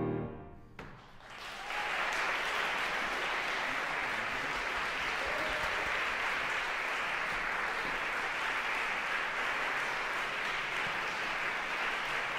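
The last chord of clarinet and piano dies away in the hall, and about a second in an audience breaks into steady applause.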